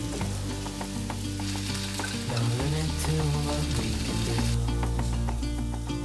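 Chicken breast pieces sizzling as they fry in a pan, with occasional clicks of tongs against the pan, over soft background music.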